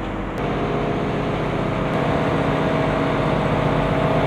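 Steady motor hum over rushing water from a vessel underway. A click comes about half a second in, after which the hum gets louder.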